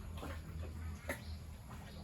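A few short farmyard animal calls, each falling in pitch, over a steady low hum.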